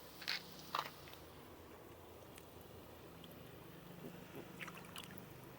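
Quiet background with a steady low hum, broken by a few short sharp clicks in the first second and fainter ticks later.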